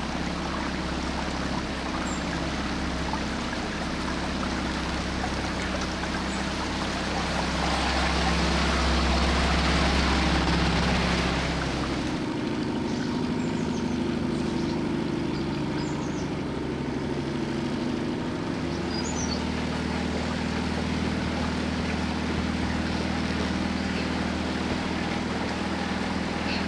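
Small outboard motor on a 20-foot cabin cruiser running steadily, with water washing along the hull. The engine hum shifts in tone about halfway through and again later on.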